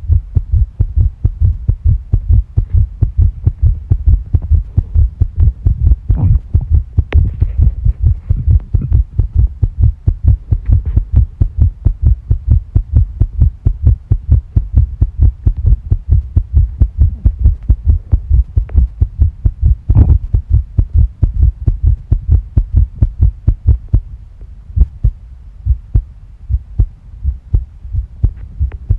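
Human heartbeat beating fast and regularly as a steady train of low thumps, a racing rhythm the uploader describes as tachycardia. After about 24 seconds the beats become weaker and more widely spaced.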